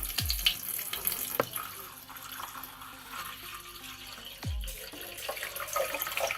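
Water running steadily from a tap into the water tank of a Nespresso Lattissima Plus coffee machine, filling it.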